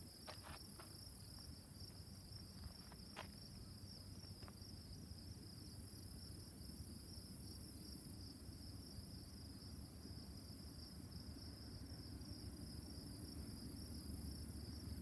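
Faint, steady high-pitched trilling of insects in the summer grass, with a low rumble from a distant approaching freight train led by two GE C44-9W diesel locomotives, growing slightly louder near the end.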